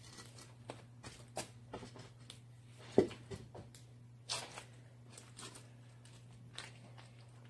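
Scattered rustles and light clicks of hands working potting soil and pots, with one sharp knock about three seconds in and a brief rustle a second later, over a steady low hum.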